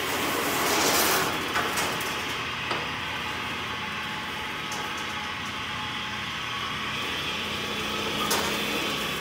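Bandsaw blade tensioning rolls running steadily as the blade is rolled through to put tension into it, with a scraping swell about a second in and a few metallic clicks.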